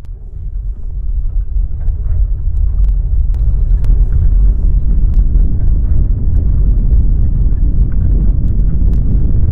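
Deep earthquake rumble rising from nothing over the first few seconds, then holding steady and loud, with scattered clicks and rattles through it.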